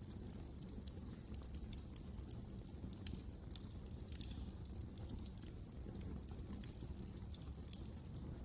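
Fireplace fire crackling: irregular sharp snaps and pops over a steady low rumble of burning.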